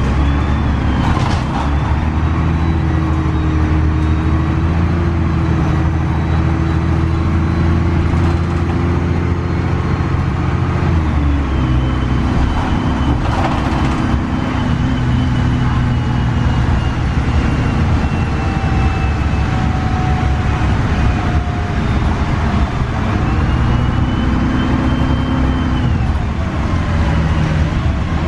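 2002 Gillig Advantage transit bus with a Cummins ISC diesel and Voith 864.3E automatic transmission, driving and heard from inside the bus. The engine note rises as it pulls, drops about eleven seconds in, then pulls and drops again near the end, with a few brief rattles and bumps.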